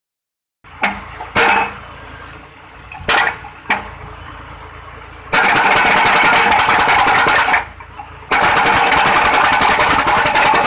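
Crash barrier post-driving machine hammering a steel guardrail post into the ground: an engine running with a few sharp clanks, then about halfway through a loud, rapid, continuous hammering that stops briefly and starts again.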